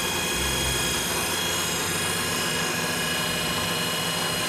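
Lagun FTV-3 vertical milling machine's 3 hp head running its R8 spindle at the higher end of the low gear range: a steady whine of several high tones. It runs quiet, with no rattling.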